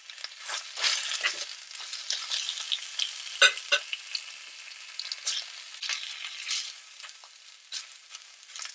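Vegan scrambled egg and melting cheese sizzling on a nonstick electric griddle, with a fork and then a silicone spatula scraping and stirring across the griddle surface in short strokes. A sharp tap about three and a half seconds in is the loudest sound.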